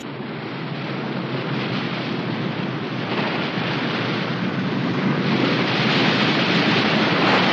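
Storm wind and heavy rain: a steady rushing noise that grows gradually louder.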